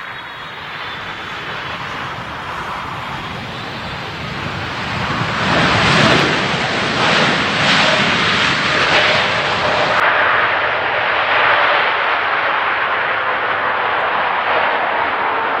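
Jet airliner on landing approach passing close by: the engine noise swells over about six seconds to its loudest, then stays loud and steady.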